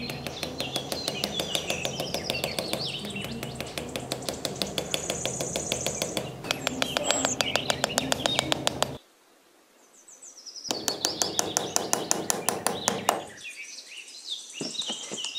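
Birds chirping over a fast, even pulsing. The sound cuts out for under two seconds about nine seconds in, and again briefly near the end.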